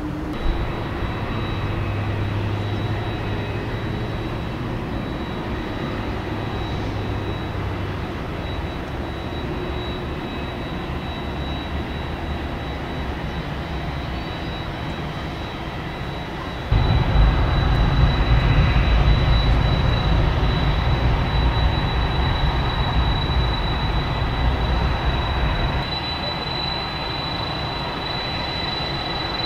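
Boeing 747-400 jet engines running at idle on the apron: a steady roar with a thin high whine over it. A heavier low rumble comes in suddenly about 17 seconds in and drops away about 26 seconds in.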